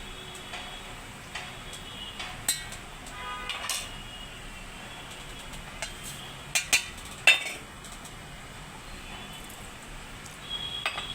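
Metal utensils and dishes clinking and knocking, with scattered sharp ringing clinks. The loudest three come in quick succession a little past the middle.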